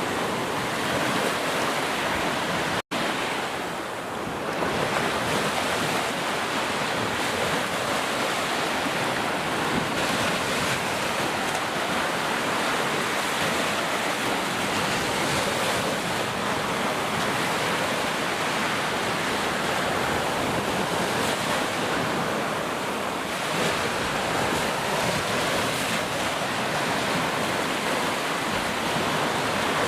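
Heavy rain falling steadily, a dense even hiss. It cuts out completely for an instant about three seconds in.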